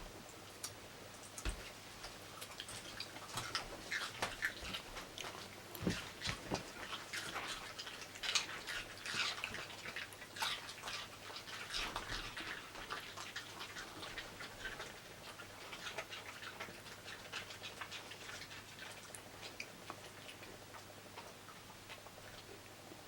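Dogs chewing and crunching vegetables: a dense, irregular run of small crunches and clicks, over a low steady hum.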